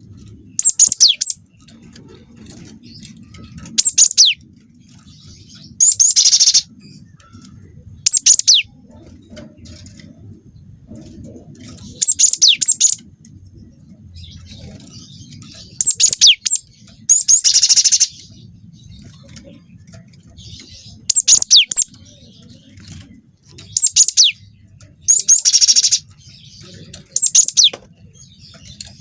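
Gelatik batu (cinereous tit) singing: loud, short bursts of sharp, high whistled notes that fall in pitch, some phrases buzzier, repeated about every two to four seconds.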